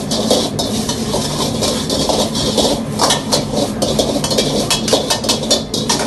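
A metal ladle clanking and scraping against a wok in rapid, irregular strikes as food is stir-fried and sizzles, over a steady low hum.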